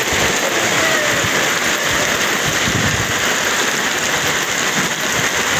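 Heavy rain pouring down, a steady dense hiss.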